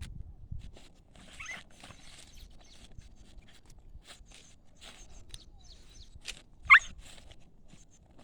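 Scuffling and scattered footsteps of a child and a big dog play-wrestling, with one short, sharp, high-pitched cry rising in pitch about two-thirds of the way through.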